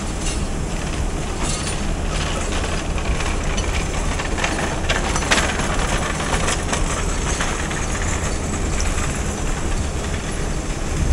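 Passenger train running on the track, heard from on board the coach: a steady low rumble with irregular clacks of the wheels over rail joints, thickest around the middle.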